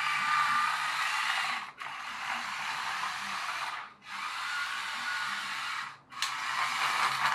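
Small brushed electric motor and plastic gearbox of a toy RC truck whirring as it drives across a wooden floor. The whirr cuts out briefly three times, about every two seconds, as the throttle is let off and reapplied.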